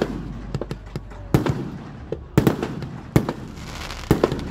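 Loud, sharp firecracker bangs at irregular spacing: four big ones roughly a second apart, with smaller pops between them, over a low steady rumble.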